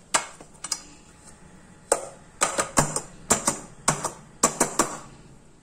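Upturned stainless steel bowl knocked and tapped on a ceramic plate to loosen and turn out set halwa: about a dozen sharp metallic knocks, a couple near the start and then quick runs of two or three from about two seconds in.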